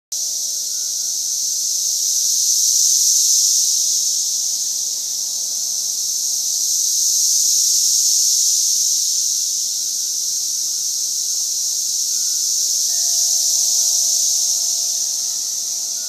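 Chorus of cicadas in a tree: a loud, high-pitched pulsating hum that swells and fades slowly, about every five seconds.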